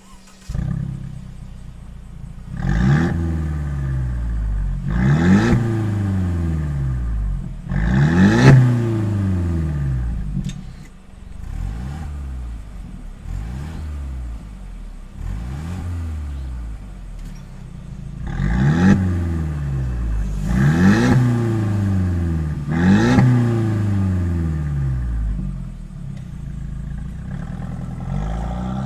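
Mercedes-Benz W205 C300's turbocharged four-cylinder engine, through a JHG aftermarket valved exhaust, blipped repeatedly from idle, about a dozen times, each rev rising and falling back. The blips in the middle are softer, with the exhaust valve closed.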